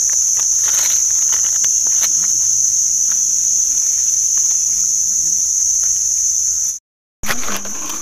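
Steady, high-pitched chorus of insects, the loudest sound throughout, with faint clicks of handling beneath it. It cuts out for a moment near the end.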